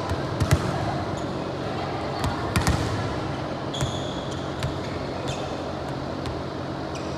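Volleyball match in a gym: a steady background of hall noise, with several sharp ball hits or thuds scattered through it and a brief high squeak about four seconds in.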